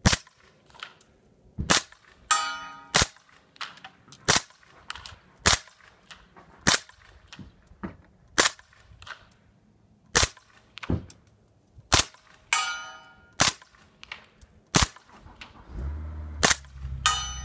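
Suppressed 9mm MP5 short-barrelled rifle fired in single shots, about fifteen sharp reports spaced unevenly roughly a second apart. A few shots are followed by a ringing metallic ping, typical of a steel target being hit.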